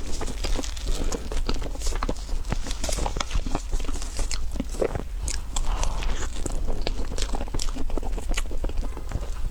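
Close-miked chewing and biting of a chocolate dessert: a dense run of small, irregular mouth clicks and crackles.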